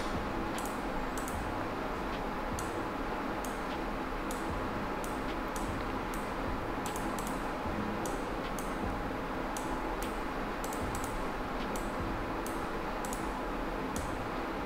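Irregular clicks from a computer mouse and keyboard, a few a second, over a steady background hiss.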